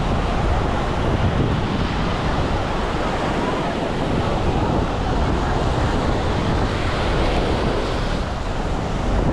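Ocean surf breaking and washing up on a beach, mixed with wind buffeting the microphone as a low rumble.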